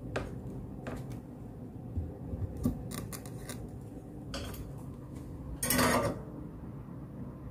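Small clicks and taps of hookup wires being handled on a workbench, with a louder rustling scrape about six seconds in, over a low steady hum.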